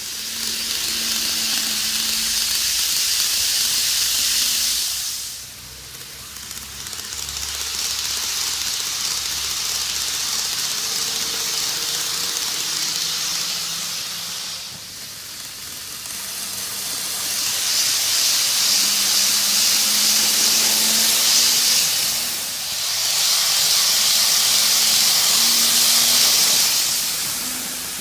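N-gauge model train running on its track: a steady whirring hiss from the motor and wheels with a faint low hum. It swells and fades as the train comes close and moves away, dipping about a fifth of the way in, about halfway and again about four-fifths of the way through.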